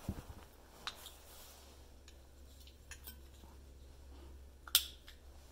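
Metal parts of a VW 30 PICT-2 carburetor clicking and clinking as they are handled during disassembly: a few sharp clicks, the loudest near the end, over a low steady hum.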